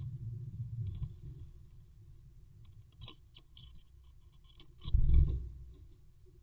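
A great tit's feet and body bumping and scratching on a wooden nest box: light scattered clicks and scrapes, with a heavy low thud about five seconds in.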